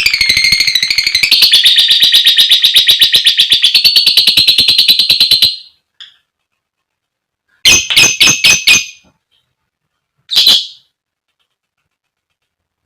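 Female lovebird giving a long, rapid, shrill chattering trill ('ngekek') of about ten notes a second, which stops after about five and a half seconds. After a pause comes a quick run of five short, sharp calls, and then one more call.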